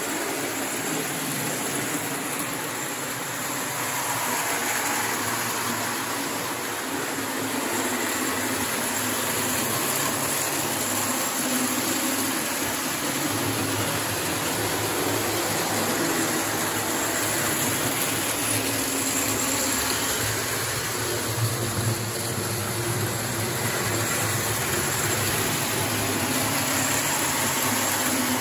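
O-gauge model trains running steadily on the layout's track: a continuous rolling noise of wheels on rail and electric motors.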